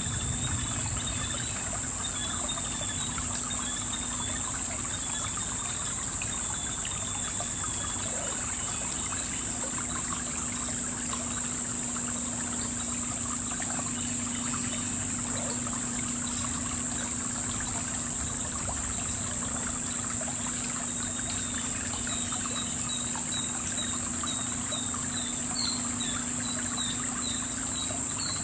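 River water trickling steadily over a stony bed, under a constant high insect drone. Short high bird chirps come now and then, then in a quicker run of two or three a second near the end.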